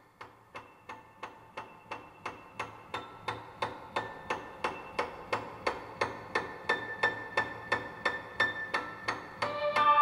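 Background music with a steady ticking beat of about three clicks a second under sustained notes, fading in and growing louder, with fuller chords entering near the end.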